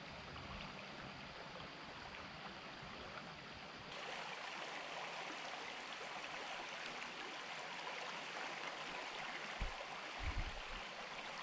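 Shallow river current flowing and rippling past submerged grass at the bank: a steady soft rush of water that grows louder and brighter about four seconds in. A few low thumps come near the end.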